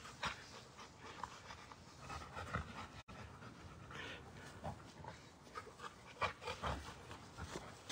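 Rottweiler panting, in short irregular breaths.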